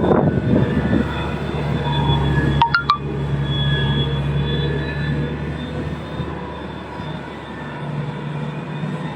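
Heavy truck engine running steadily at low pitch, with a brief sharp click about three seconds in.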